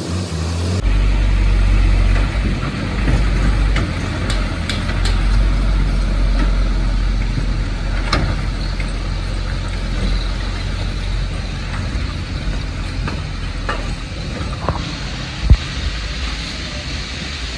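Heavy twelve-wheel goods truck's diesel engine running as the truck drives off and manoeuvres, with a strong low rumble. A single sharp loud knock comes about two seconds before the end.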